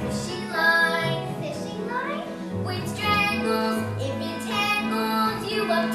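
Children singing a number from a stage musical over instrumental accompaniment, with held low notes beneath the voices.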